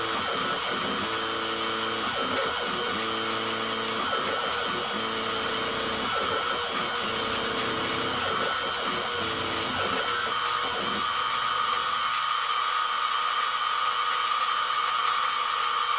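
CNC-converted mini mill running a drilling program in wood: the spindle motor runs with a steady whine, while the axis drive motors move in separate pitched buzzing runs. The axis motors stop about eleven seconds in and the spindle keeps running.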